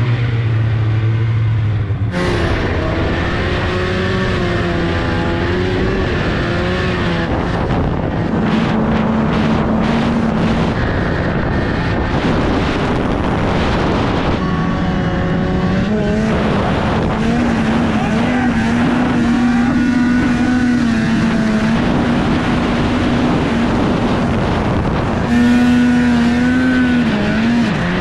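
2003 Polaris RMK 700's two-stroke twin engine running hard as the snowmobile climbs through snow, its pitch rising and falling with the throttle. The sound changes abruptly about two seconds in.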